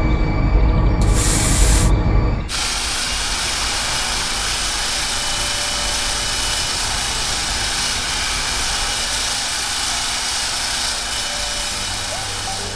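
Power-driven abrasive wheels spinning against a cast metal sword blade. First a loud rumbling grind with hiss that cuts in and out. Then, after a sudden change about two and a half seconds in, the steady hiss of an electric drill driving an abrasive wheel over the blade.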